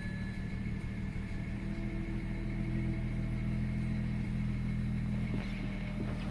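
BMW N54 twin-turbo straight-six engine idling with a steady, even hum.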